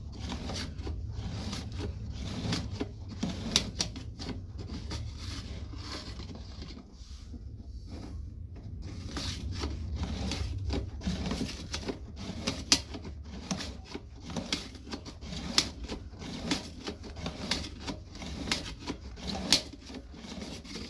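Irregular clicking and scraping of a sewer inspection camera's push cable being fed down a drain line, over a steady low hum.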